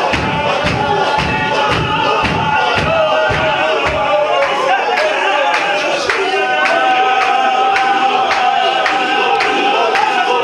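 Chechen Sufi zikr: a group of men chanting in unison over a steady beat of about three foot stamps a second as they move round in a circle. About six seconds in, a long held sung line rises over the chant.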